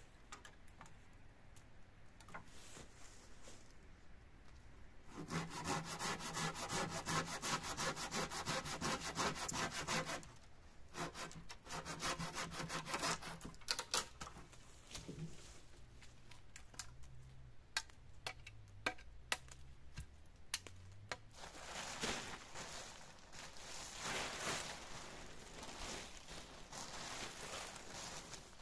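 Hand saw cutting through a wooden pole in quick, even strokes, in two long runs with a short pause between, then a few scattered knocks. Rustling follows near the end.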